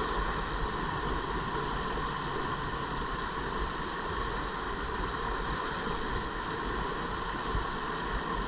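Steady rush of river whitewater pouring over a rock ledge in a small rapid.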